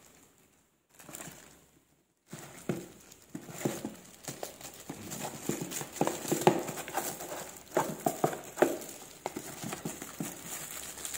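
Cardboard box and plastic wrapping rustling and knocking as a hand works a boxed digital hygrometer out of a tight-fitting carton. Nearly silent for about two seconds, then steady irregular crinkles and light knocks.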